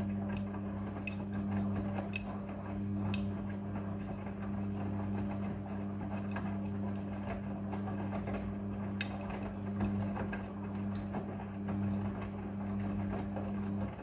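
Front-loading washing machine tumbling a wet load during the wash: a steady motor hum with the swish of clothes and water in the drum and scattered light clicks. The drum and motor stop at the very end.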